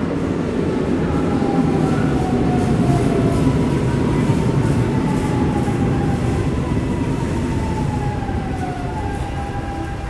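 Subway train arriving at a station: a heavy rumble of wheels on the track with faint rail clicks, and thin whines that slide slowly down in pitch as the train slows. The rumble is loudest a few seconds in and eases off toward the end.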